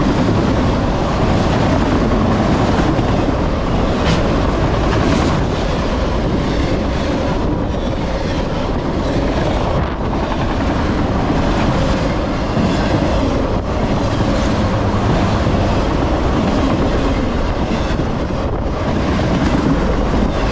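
Enclosed autorack freight cars of a long train rolling past at speed: a steady, loud noise of steel wheels running on the rails.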